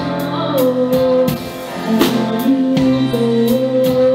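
Live rock band playing a slow ballad: electric guitar, bass, keyboard and drum kit, with a held melody note that wavers in pitch and cymbal hits about every half second to second.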